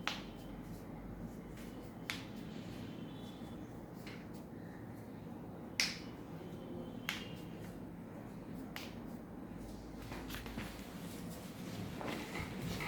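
A series of sharp cracks from joints being manipulated in a chiropractic adjustment, about six in all, irregularly spaced one to two seconds apart and loudest near the middle, over a steady low background hum.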